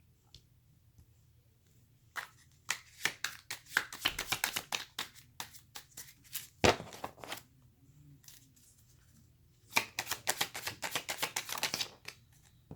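Tarot cards being shuffled by hand: two bouts of rapid crisp card flicking, with a sharper snap of the deck partway through the first.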